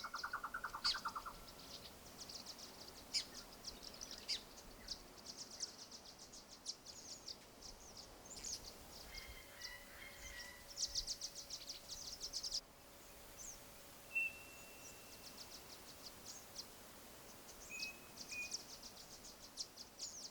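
Small birds chirping and trilling: quick runs of high, rapid notes repeated in clusters, with a short, lower, fast trill at the start and a couple of brief thin whistles later.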